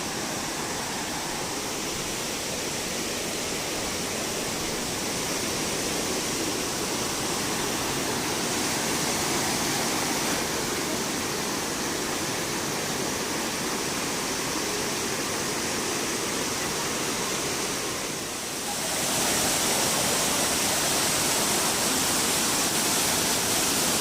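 Elephant Falls waterfall: a steady rush of water pouring down over rocks. It briefly dips about three-quarters of the way through, then comes back slightly louder.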